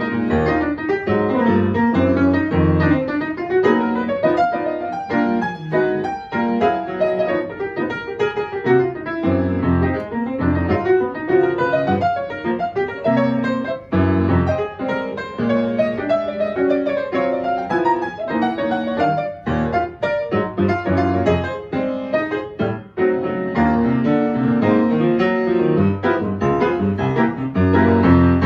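Grand piano played live: a busy passage of many struck notes, with low bass notes and chords under the melody.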